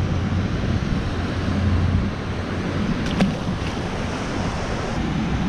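Steady rush of moving water with wind buffeting the microphone, and a faint click about three seconds in.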